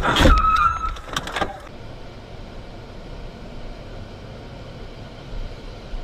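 A sudden loud crash right at the start, with clattering and banging for about a second and a half. Then the steady road and engine noise of a car driving.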